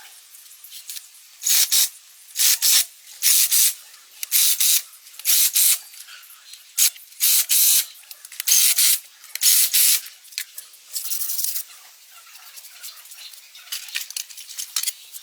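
Repeated short bursts of spraying hiss, about eight of them, each under half a second, then a softer, longer spray burst near the end.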